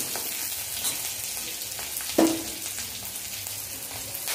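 Hot oil tempering of mustard seeds, cumin, curry leaves and green chillies sizzling steadily in a steel kadhai, with one brief knock about two seconds in.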